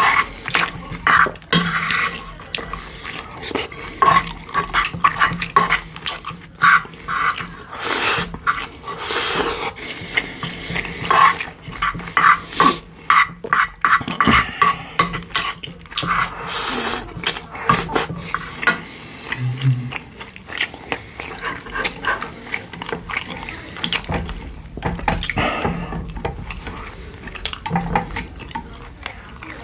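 Close-miked eating sounds of pork-bone soup: wet chewing and slurping, broken by many short clicks of spoon or chopsticks against the bowl.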